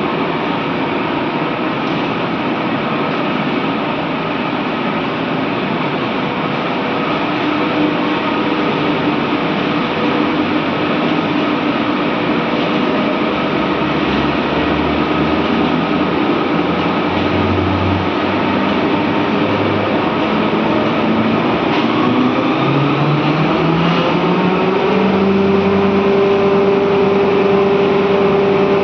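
Steady, loud machinery noise of a 6 TPH steam boiler plant running, with several steady hums. About three quarters of the way through, a low tone rises in pitch and then holds steady.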